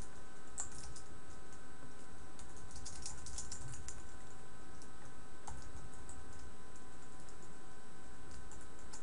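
Typing on a computer keyboard: irregular bursts of key clicks, over a steady background hum.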